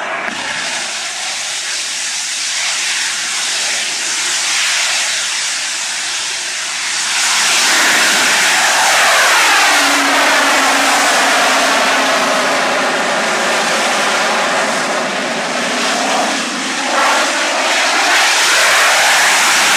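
Masten Xombie VTVL rocket's liquid-fuel engine firing as the vehicle lifts off and hovers: a steady, rushing roar that grows louder about seven seconds in, with a sweeping, phasing shift in its tone as the vehicle climbs.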